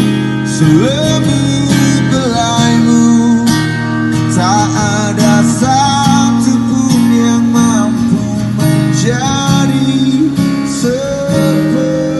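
Acoustic guitar song with a man singing, played through a customized Toyota Alphard's in-car audio system.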